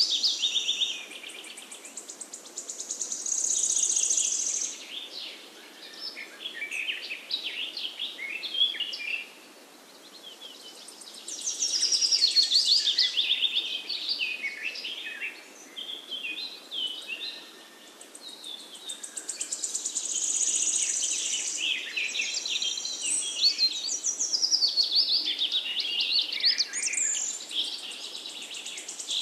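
Birds singing: long runs of quick, high chirps and trills, with a couple of short lulls.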